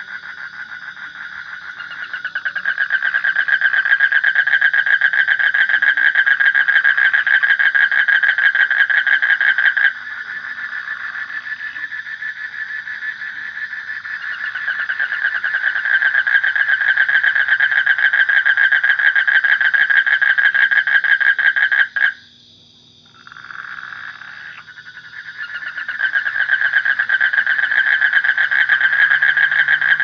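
Frog calling in long, fast pulsing trills, one after another. The trill softens about ten seconds in and breaks off for a moment about twenty-two seconds in, then starts up loud again.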